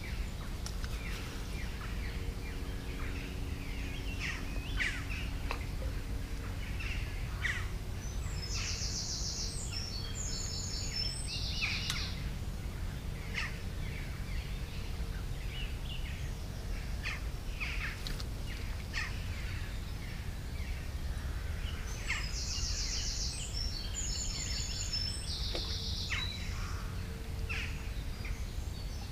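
A songbird sings the same fast, trilled high phrase twice, about thirteen seconds apart, among scattered short chirps from other birds, over a steady low rumble.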